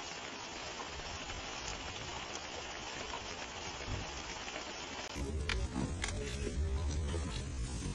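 Steady hiss of heavy rain falling. About five seconds in it gives way abruptly to a low rumble with a few sharp clicks.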